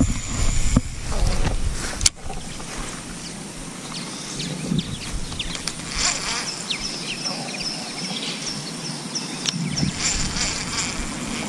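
Baitcasting reel being wound in: a high whirring buzz with a regular fine ticking. A low rumble and a sharp knock come first, in the opening two seconds.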